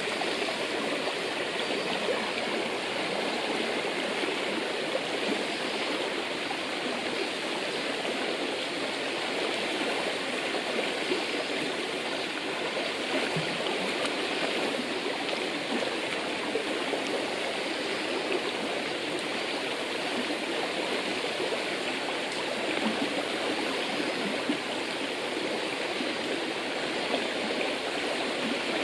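River water bubbling and gurgling over stones, a steady rushing flow with small splashes throughout.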